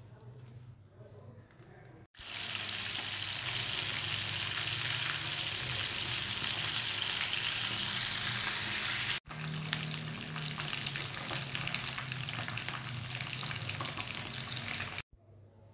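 Pieces of salem fish (mackerel) frying in hot oil in a wok. It starts with a loud, steady sizzle about two seconds in. After a brief break at about nine seconds it sizzles on with sharper crackles, then cuts off near the end.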